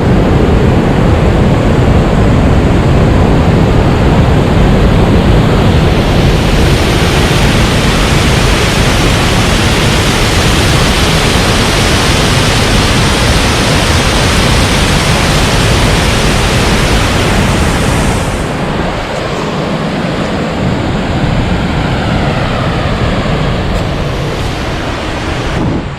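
Waterfall in heavy spate after a storm, a loud, steady rush of falling water. It eases a little and thins in the low end about eighteen seconds in.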